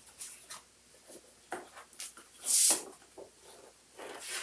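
Paper rustling and sliding as printed posters and inserts are handled, with small clicks and one brief loud swish of paper about two and a half seconds in.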